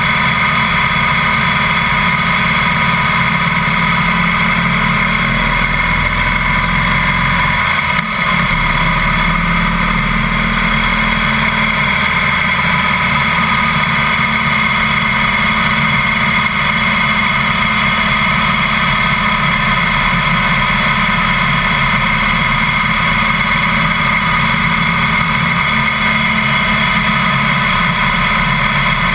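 Harley-Davidson Heritage Softail's air-cooled V-twin running at road speed, picked up by a camera mounted low by the front wheel, under a steady loud rush of wind and road noise. The low engine rumble swells for a few seconds, with a short dip about eight seconds in.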